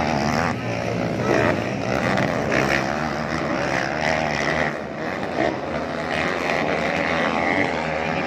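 Several motocross bikes racing, their engines revving up and down and rising and falling in pitch.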